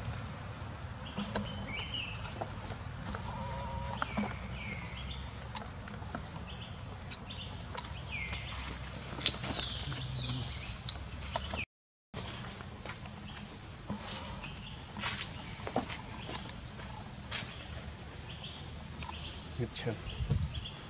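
A steady, high-pitched insect drone holding one unbroken tone, with scattered light clicks and a few short chirping calls. It drops out for a moment about halfway through.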